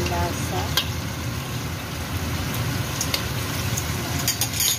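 Tofu and tomato sauce simmering in a wok over a gas flame: steady bubbling and spattering over a low, steady rush, with a few sharp pops, several of them close together near the end.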